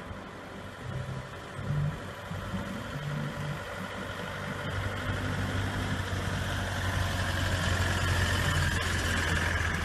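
Dotto electric tourist road train driving past close by: a steady low electric-drive hum with a higher whine and tyre noise, growing louder as the tractor unit and its carriages go by.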